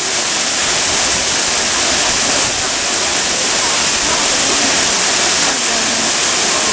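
Minoo Falls, a tall waterfall, pouring into its pool as a loud, steady, unbroken rush of falling water.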